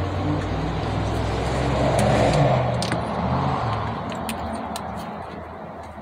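A motor vehicle going by close at hand, its engine swelling to a peak about two seconds in and then fading away. A few light clicks sound over it.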